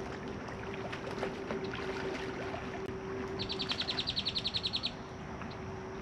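Outdoor ambience with a steady low hum and scattered small clicks; about three and a half seconds in, a bird gives a rapid high trill of about ten notes a second lasting a second and a half.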